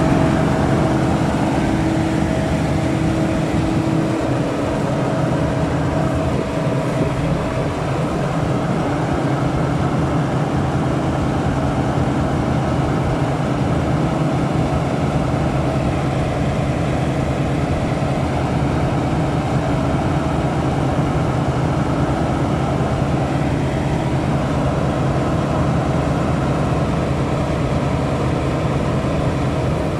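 Claas Dominator 68 combine harvester's diesel engine running steadily while its unloading auger empties the grain tank into a trailer. A higher whine in the sound fades out during the first few seconds.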